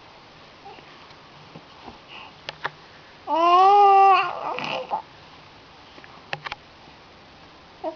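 A baby vocalizing: one loud, drawn-out, high-pitched babbling cry about three seconds in, with a few faint clicks and quiet before and after.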